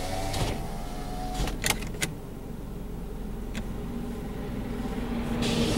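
Car's power windows whining as they wind shut, stopping about a second and a half in, followed by a few sharp clicks. Under it the car's engine and tyres run on a rough road, and near the end the rumble grows louder as an oncoming loaded logging truck passes.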